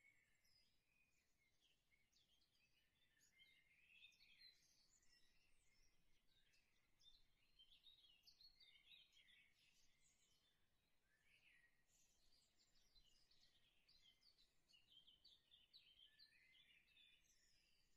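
Near silence, with faint high-pitched bird chirping throughout.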